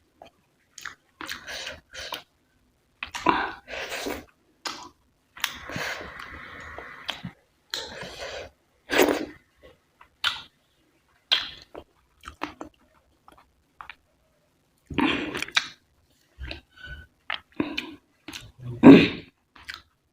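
Close-miked chewing and mouth sounds of someone eating rice and curry, irregular wet smacks and bites with short pauses between mouthfuls.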